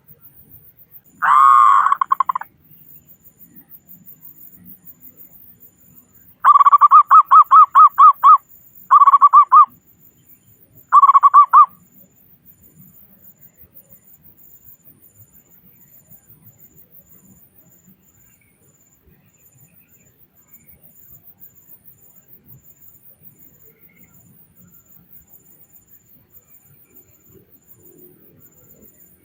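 Zebra dove (perkutut) cooing, its notes centred low around a kilohertz. There is one short call about a second in. From about six seconds in comes a run of rapid pulsed cooing notes in three phrases, a long one and two shorter ones, ending around twelve seconds.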